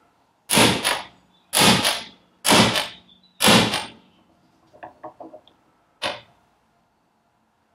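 A hammer striking a hand impact driver on a stuck field-coil retaining screw in a dynamo casing: four sharp metallic blows about a second apart, a few small clicks, then one more blow. The screw does not give.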